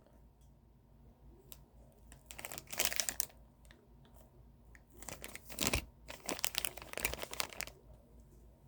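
Packaging crinkling and rustling as it is handled, in several short bursts; the loudest comes about three seconds in.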